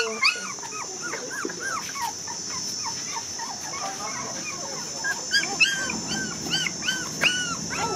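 A litter of four-week-old puppies whimpering and yelping: many short, high cries that rise and fall, overlapping several a second, getting busier in the second half.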